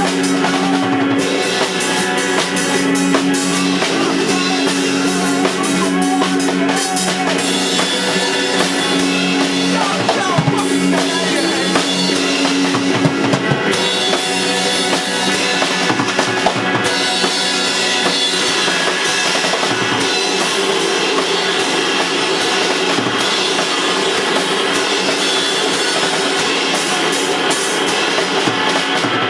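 A band playing improvised live rock music, with a full drum kit (bass drum and snare) driving a steady beat over sustained guitar or bass tones.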